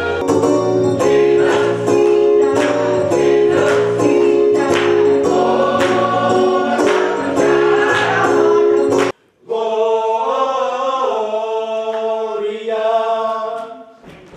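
Gospel choir music with a steady beat that cuts off suddenly about nine seconds in, followed by a passage of held sung notes without the beat, fading out near the end.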